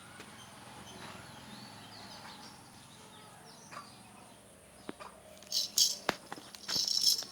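Faint bird chirps over a low background, then a few loud rustling, flapping bursts with clicks near the end.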